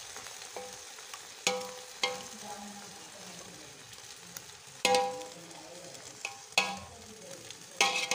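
A metal ladle scraping through chicken gravy and rice in a large aluminium pot, knocking against the pot's side about five times with a short metallic ring, over a steady sizzle from the pot.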